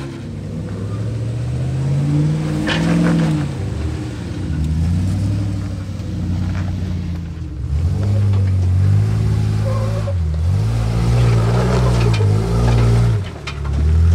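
A Jeep's engine revving up and down repeatedly under load on a slow rock crawl. A few short knocks come through, one at about three seconds in and another near eight seconds.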